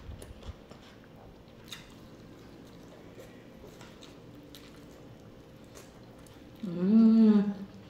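Quiet chewing with small wet mouth clicks as someone eats rice and chicken, then near the end a loud, one-second hummed "mmm" of enjoyment that rises and falls in pitch.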